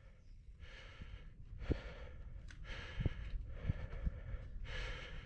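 A person breathing close to the microphone, about one breath a second, over a low rumble with a few soft knocks.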